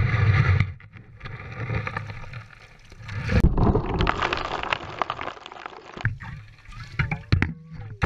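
Creek water splashing and gurgling right at the camera, which is held at the waterline. A few sharp knocks come from handling, and the sound changes suddenly several times where short clips are joined.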